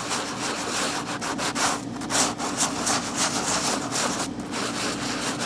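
Sanding sponge rubbed back and forth over wet paper in quick repeated scratchy strokes. It is scuffing the paper backing of a gel medium image transfer to help the water soak in before the backing is rubbed away.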